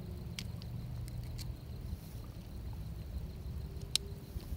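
A steady low rumble, with several faint clicks in the first second and a half and one sharper click near the end as a channel catfish and its hook and line are handled.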